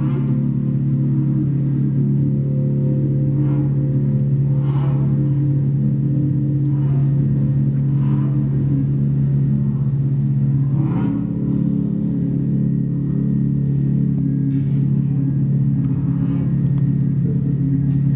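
Experimental music on homemade instruments of glass tubes, clarinet reeds and piano wire, played through guitar amps: a steady low drone of several held tones, with brief soft wisps of higher sound every few seconds.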